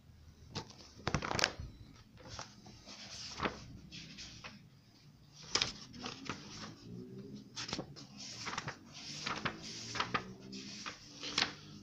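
Textbook pages being leafed through: a string of scattered soft rustles and clicks of paper, some louder than others.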